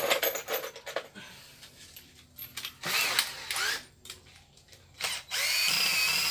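Handheld cordless drill run in three short bursts, its motor whine rising as it spins up; the last run, near the end, is the longest and steadiest.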